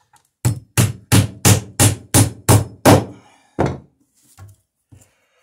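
Claw hammer driving a nail into a small wooden block on plywood: eight quick strikes at about three a second, then one last blow a little later.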